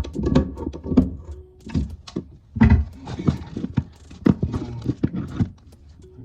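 Irregular knocks, taps and clicks of hands and tools working on toilet tank plumbing fittings, several sharp thunks among them.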